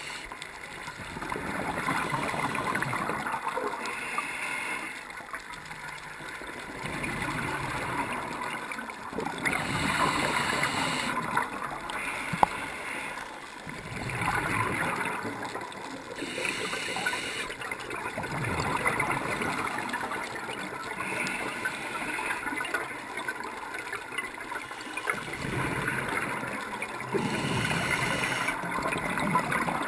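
Scuba diver breathing through a regulator underwater, heard through the camera's waterproof housing: hissing inhalations alternate with bubbling, gurgling exhalations in a slow cycle every few seconds. One sharp click comes near the middle.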